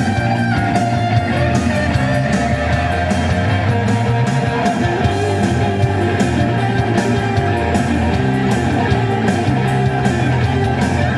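Rock song with guitar and a steady drum beat.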